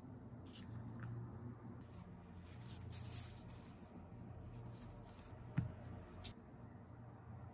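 Faint handling sounds of gloved hands and metal tweezers on small resin phone-grip pieces: soft rustling and a few small clicks, the sharpest about five and a half seconds in.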